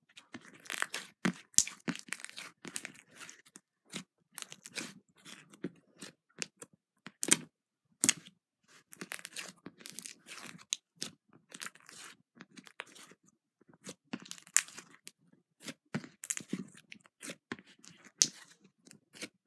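Slime being squeezed, poked and pressed flat by hand, giving a run of irregular sticky clicks and crackling pops with short pauses between them.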